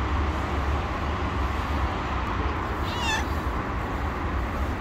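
Tabby cat giving one short meow about three seconds in, the call of a hungry stray asking for food, over a steady low rumble.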